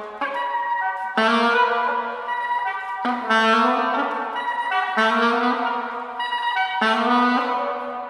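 A live avant-garde jazz ensemble playing held wind-instrument chords in repeated phrases, a new phrase starting about every two seconds.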